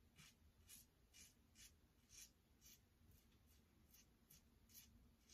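Faint short scraping strokes of a RazoRock Switch double-edge safety razor with a Derby Extra blade cutting lathered stubble on the cheek, about two strokes a second.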